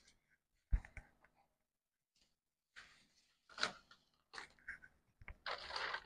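Paper pattern pieces being handled on a worktable: intermittent rustling and crinkling of paper, denser near the end, with a sharp knock on the table a little under a second in.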